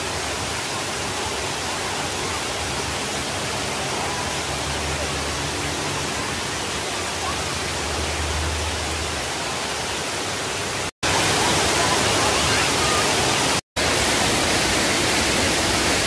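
Steady rushing of a waterfall's falling water. The sound cuts out briefly twice, and is a little louder after the first break.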